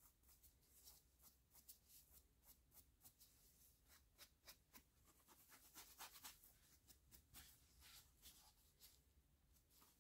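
Faint, quick back-and-forth rasping of a scouring sponge rubbed along a steel screwdriver shaft, cleaning the old, rusted metal.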